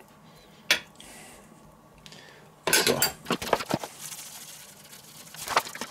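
A metal spoon clicks once, then clatters against other utensils as it is set down in a bowl. This is followed by the rustle of a paper bag of barbecue rub being shaken out.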